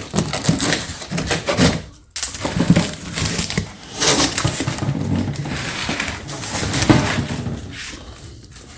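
Shipping box being opened and its packing handled: continuous rustling and crinkling of cardboard and wrapping, with a brief break about two seconds in.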